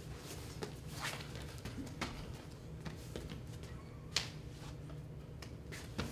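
Scattered sharp slaps and knocks from wrestlers drilling on the mats, about five in all, the loudest about four seconds in, over a steady low hum.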